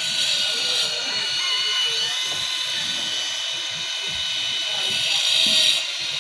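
Handheld angle grinder running with a steady high whine, cutting marble stone cladding. It grows louder as the disc bites into the stone at the start and again about five seconds in.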